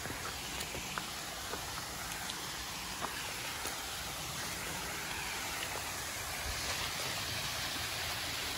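Small waterfall splashing down onto rocks: a steady rushing hiss that grows a little louder near the end, with a few faint clicks.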